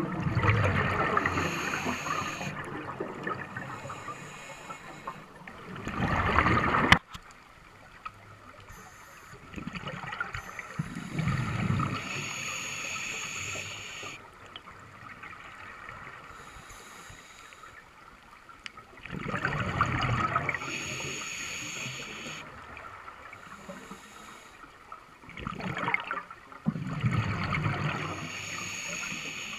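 Scuba diver breathing through a regulator underwater: bubbly gurgling exhalations lasting a second or two, every several seconds, the loudest about six seconds in.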